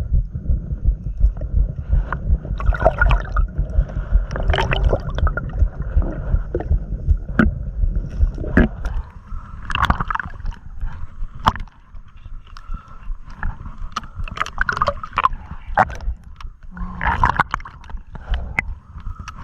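Water gurgling and sloshing close to the microphone, with a heavy low rumble and many scattered sharp knocks and clicks.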